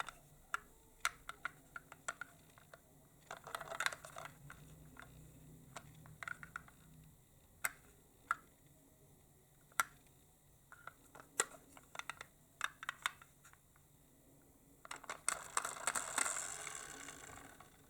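Toy minicars being handled: scattered small clicks and taps of plastic and die-cast toys. Near the end comes a denser rattle lasting about two seconds, like a toy car rolling down a slope.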